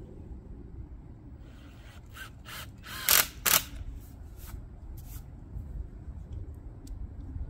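Cordless drill-driver running in several short bursts, the loudest about three seconds in, as screws are driven through a western red cedar 2x6 rail into a post top.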